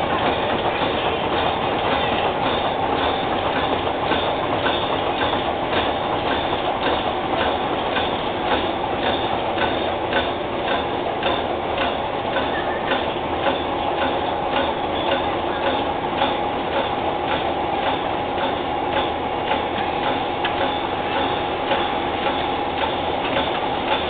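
Side-sealing plastic bag making machine running at production speed: an even, repeating clacking from its sealing and cutting cycle over a steady machine hum and whine.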